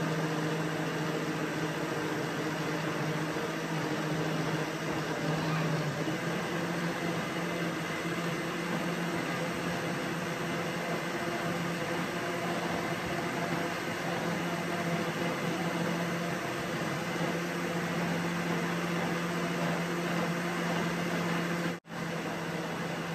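Electric countertop blender running steadily, its motor giving an even hum with a rushing whir as it blends a thick lemon mousse mixture of cream, condensed milk and lemon juice. There is a brief break in the sound near the end.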